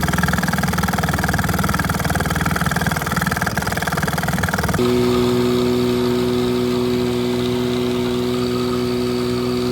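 Outboard motor engine running with a fast, even firing beat. About five seconds in it cuts abruptly to a steadier run with a strong, even hum.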